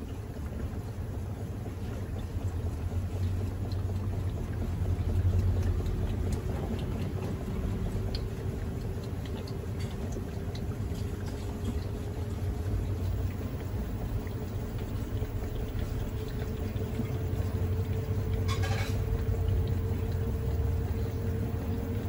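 Panasonic NA-FD10X1HRM top-load inverter washer spinning its drum in the spin after the first rinse, water draining off the load. A motor whine rises slowly as the tub speeds up, over a low rumble, with one brief hiss near the end.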